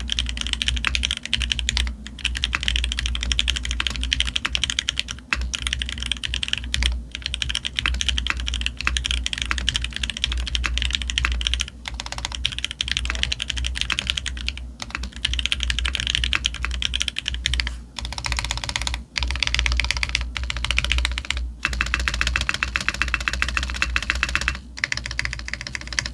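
Fast, continuous typing on an F1-8X custom mechanical keyboard with a brass plate, leaf gasket mount, lubed Marshmallow R4 switches and Leopold keycaps: a dense run of key clicks broken by a few short pauses. A steady low hum lies underneath.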